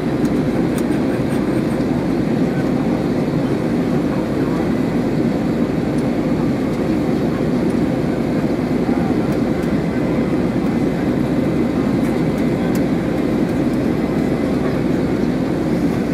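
Steady cabin noise inside an Airbus A320-214 in climb, heard from a window seat over the wing: an even, low rush of its CFM56 engines and the airflow, with a faint steady hum.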